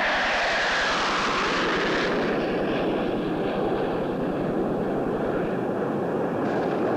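Canadair CT-114 Tutor jets, single-engine jet trainers, flying past in a loud, steady jet rush. The sound is brightest in the first couple of seconds, then settles into a duller, lower roar.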